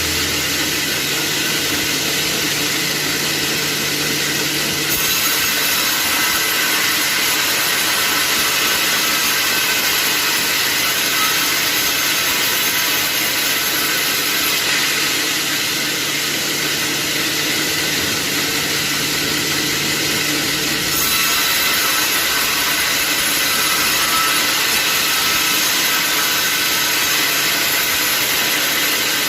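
Sawmill saw running steadily and cutting through wood, a continuous dense machine noise that shifts slightly in level a few times.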